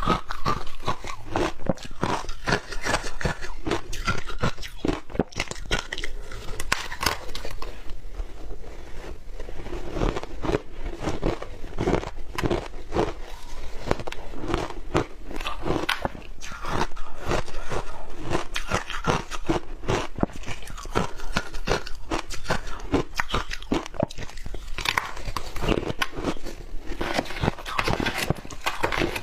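Close-miked crunching of powdery crushed ice being bitten and chewed, a dense run of irregular crunches with no pauses.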